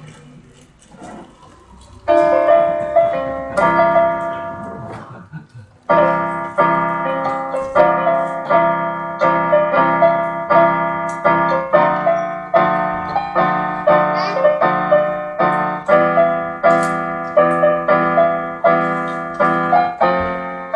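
Electronic keyboard with a piano sound played with both hands: a few soft notes, then a chord at about two seconds that rings and fades. From about six seconds in, a steady, evenly paced passage of chords and melody, about two strikes a second.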